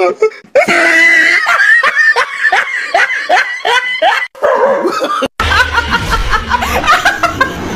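Hearty laughter in quick, repeated pulses. After a brief break about five seconds in, a woman laughs loudly over a low hum.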